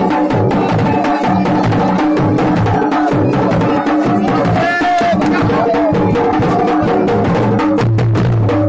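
Garhwali dhol and damau drumming: a fast, steady dance rhythm of dense, rapid strokes played live.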